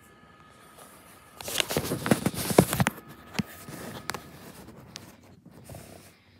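Handling noise from the recording phone being moved and adjusted close up: a loud spell of rustling with clicks and knocks about a second and a half in, then fainter scattered taps and rubbing.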